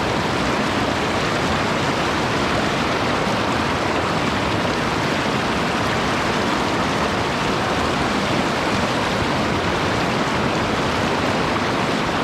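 Mountain stream flowing, a steady, unbroken rush of water.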